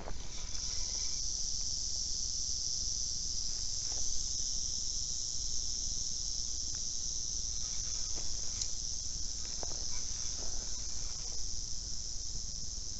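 Prairie rattlesnake rattling its tail: a continuous high buzz that starts suddenly and holds steady, the snake's warning at being disturbed.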